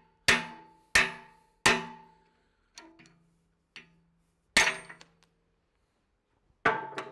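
Hammer striking a steel punch held in vice grips, driving the retaining pin out of an excavator bucket tooth. Sharp metallic blows ring briefly after each one: three in a row about a second apart, two lighter taps, then two more hard blows.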